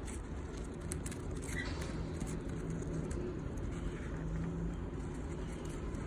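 Steady low hum and rumble, with a few faint soft clicks and a brief faint high peep about one and a half seconds in.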